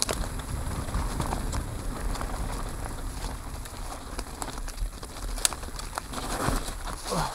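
Downhill mountain bike ridden fast down a dry dirt trail: tyres rolling and crunching over dirt and dead leaves, with the bike clattering and sharp clacks over bumps. A brief falling tone is heard near the end.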